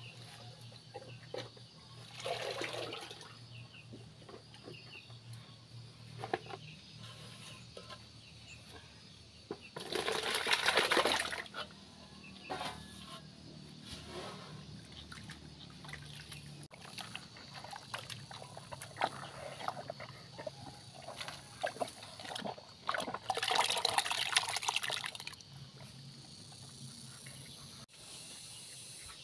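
Watery buffalo feed being poured and scooped between a plastic bucket and a metal basin, splashing in three bursts, the loudest about ten seconds in.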